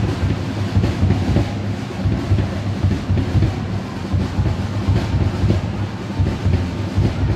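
Football supporters drumming and chanting in the stadium stands: a loud, continuous din with irregular drum beats.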